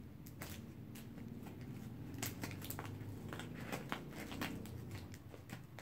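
Scissors snipping and cutting at clear packing tape on a cardboard parcel: a run of irregular sharp clicks and crackles, denser and louder from about two seconds in.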